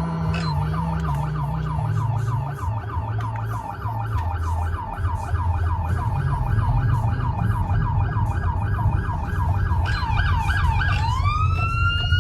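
Emergency vehicle siren on a fast yelp, about three to four sweeps a second, switching near the end to a slower rising wail, over a steady low drone.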